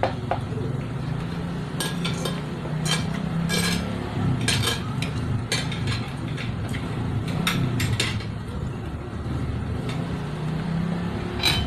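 Eating at a table: chewing and mouth sounds over boiled pork eaten by hand, with scattered clicks and clinks of cups, spoons and dishware over a steady low hum.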